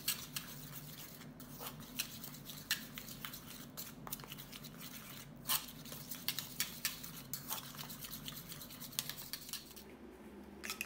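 Metal fork stirring a batter of crispy-frying flour and ice-cold water in a small stainless-steel bowl: irregular light clicks and scrapes of metal on metal. A faint steady low hum lies beneath.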